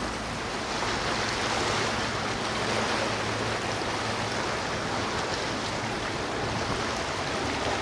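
Steady rushing noise of water, like surf.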